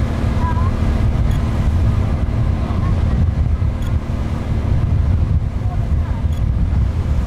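Passenger ferry's engine droning steadily with a low hum, and wind buffeting the microphone.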